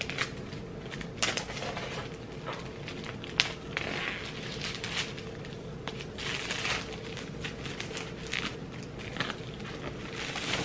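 Plastic shrink wrap being pulled and peeled off a laptop's cardboard box, crinkling and crackling irregularly, with scattered sharp clicks and taps as the box is handled.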